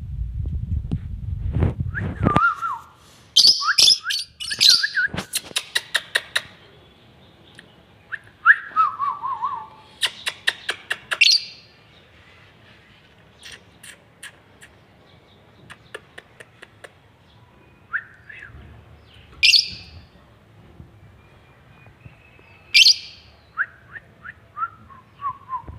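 A parrot calling: short falling whistles, loud harsh squawks and runs of rapid clicks, spaced out with pauses, ending in a quick series of short falling notes. A low rumble runs under the first two seconds.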